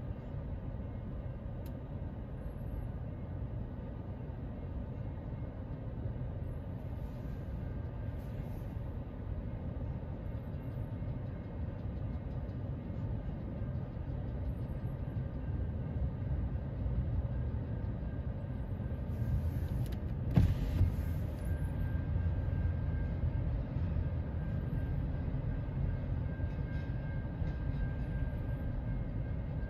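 Train rolling past at a level crossing: a steady low rumble of steel wheels on rail as passenger cars give way to double-stack container cars, with a sharp clank about twenty seconds in and a thin steady high tone in the later part.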